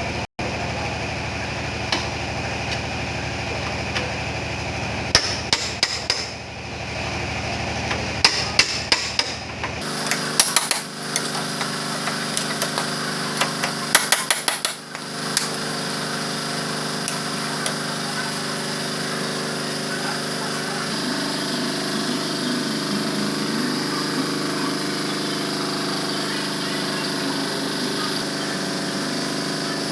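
Hammer tapping on the steel front door panel of a Suzuki Carry pickup during panel-beating dent repair. The quick strikes come in two bursts, one about a fifth of the way in and one around the middle, over a steady background hum.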